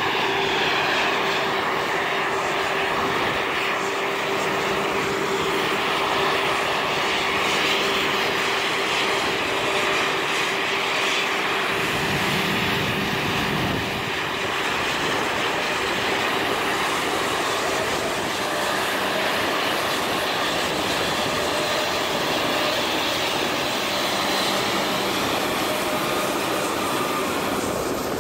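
Embraer E190's twin GE CF34-10E turbofan engines running at taxi power as the jet rolls close by: a steady loud jet whine and rush, with a constant tone that fades about halfway through. A brief low rumble comes about twelve seconds in.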